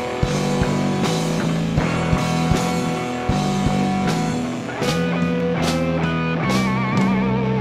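Live instrumental rock and jazz-fusion jam: keyboard, electric guitar and drum kit playing together, with regular drum hits under sustained chords. Near the end a held lead note wavers in pitch with vibrato.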